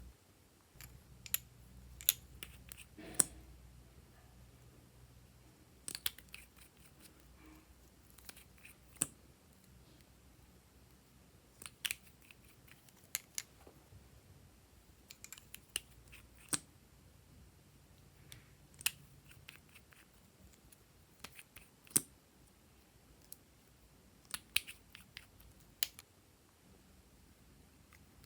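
Slime being pressed and stretched by hand, giving off sharp clicks and pops, single or in quick clusters every second or two.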